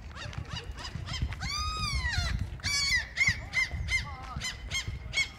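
Gulls calling overhead: a rapid string of calls, a longer drawn-out call about a second and a half in, then a series of short, evenly repeated calls.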